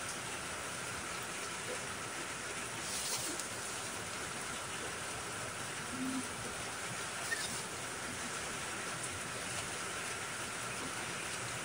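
Steady rain falling, with a couple of brief rustles about three and seven seconds in.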